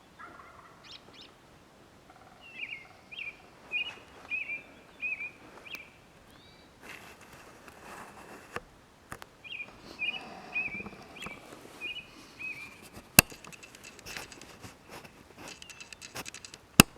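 A small songbird singing two runs of short, high, repeated chirping notes in the mountain woods, with a stretch of rustling noise between them. Two sharp clicks stand out, one after the second run of notes and one near the end.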